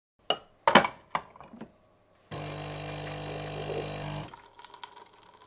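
A few knocks and clicks, then the De'Longhi Eletta Explore bean-to-cup coffee machine running with a steady hum for about two seconds before it stops.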